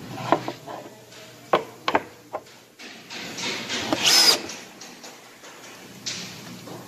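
A cordless drill driving a screw into a wooden furniture frame, its motor whining for a second or so about three seconds in and again briefly near the end. Before that, a few sharp knocks of wooden parts being handled.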